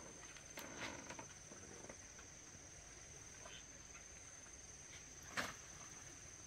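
Quiet ambience: a steady high-pitched trill with scattered faint clicks and rustles, and one sharper click about five seconds in.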